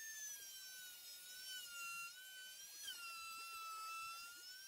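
Trim router fitted with a 12 mm straight bit running as it routes a slot in a wooden board: a high motor whine that sags in pitch under cutting load about a second in and again near three seconds, then picks back up near the end.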